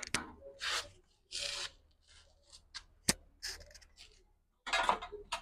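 Hand-work noises on a small generator engine: short metal scrapes and rubs from a wrench, a single sharp click about three seconds in, then a cloth rag rustling against the hot exhaust near the end. The engine is not running.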